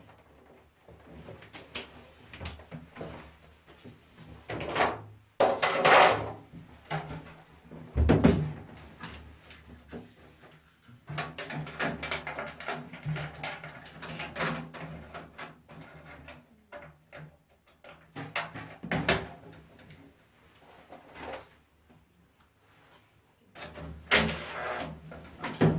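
Irregular clicks, knocks and clatter of parts being handled while a wall-mounted air conditioner is taken apart and cleaned. Louder knocks come about five, six, eight and nineteen seconds in, and again near the end.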